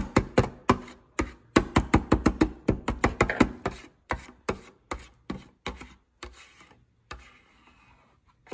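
A blue plastic spatula chopping and tapping cream on the frozen metal plate of a toy rolled-ice-cream maker: a fast run of sharp taps, about five a second, thinning out and fading after about six seconds.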